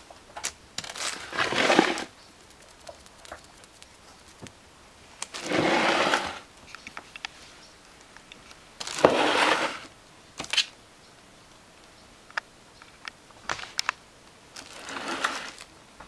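A thin clear plastic bag lining a plastic bin rustles and crinkles as a kitten paws at it and pushes into it. There are four bursts of about a second each, with small clicks and taps between them.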